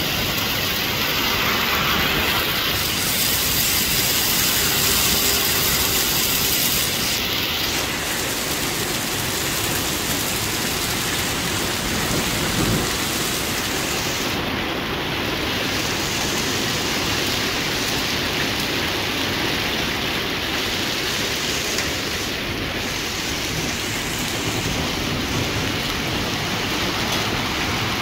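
Hail and heavy rain pelting pavement in a steady hiss, a little louder through the first several seconds.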